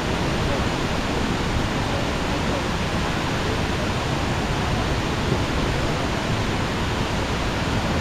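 Steady rush of the Kuang Si waterfall's tiered cascades: an even, unbroken noise of falling water.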